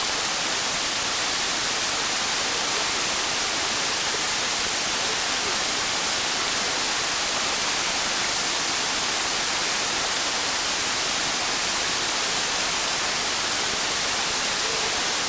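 Small waterfall splashing over a rock ledge: a close, steady rush of falling water that does not change.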